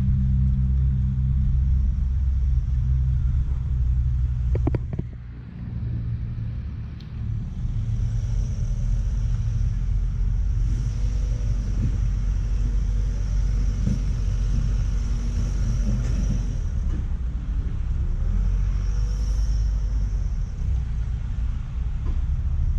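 Steady low rumble of a van's engine and road noise while driving. The sound drops briefly about five seconds in, with a couple of clicks, then settles back to a steady run.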